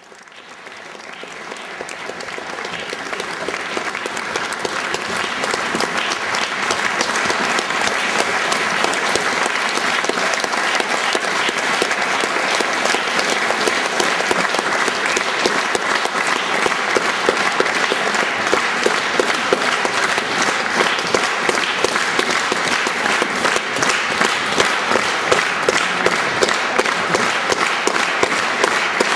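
Theatre audience applauding, many hands clapping together in a dense, even patter. It fades in over the first few seconds and then stays steady.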